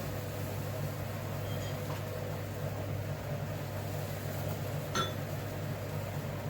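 Steady low hum of a running appliance or fan, with a sharp clink of a utensil or dish about five seconds in and fainter clinks around two seconds in.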